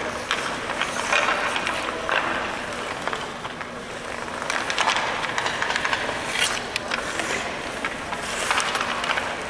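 Ice hockey practice on the rink: skate blades scraping and carving the ice in repeated hissing swells, with sharp clacks of sticks and pucks scattered throughout.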